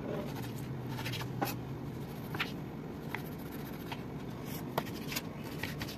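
Paring knife slicing a lime into wedges on a wooden cutting board: uneven taps and scrapes as the blade cuts through and meets the board, over a faint low hum.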